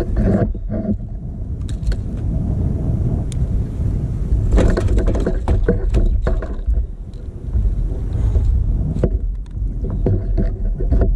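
Wind and water noise on a fishing kayak at sea: a steady low rumble of wind on the microphone, with water slapping against the plastic hull and scattered knocks and splashes, thickest about halfway through and again near the end.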